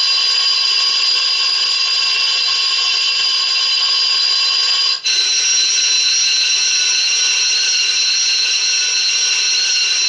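Electronic school bell sounds from an SBELL 8012 bell controller's audio output, played one after another in test mode: a continuous alarm-like bell tone made of several steady pitches. About halfway through it cuts out briefly and the next stored bell sound takes over, a different steady tone.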